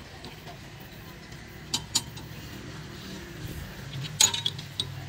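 Sharp metallic clinks of steel mould parts and tools being handled on a concrete-pipe mould: two light clinks about two seconds in and a louder clatter about four seconds in, over a low steady hum.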